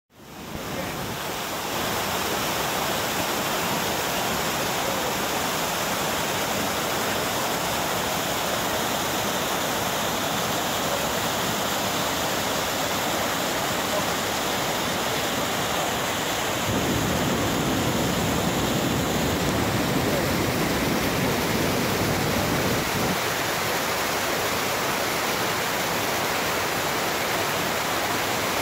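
Waterfall cascading over boulders: a loud, steady rush of falling water. It rises from silence over the first second or two, and is heavier in the low end for several seconds past the middle.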